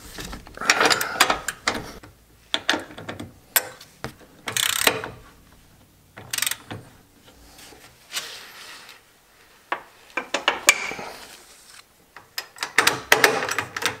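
Bursts of ratchet clicking and metal clinks as the mounting nut of a Boat Buckle retractable tie-down is tightened onto the trailer frame with a wrench and socket; near the end, rasping clicks as the tie-down's strap is pulled out of its retractor and hooked on.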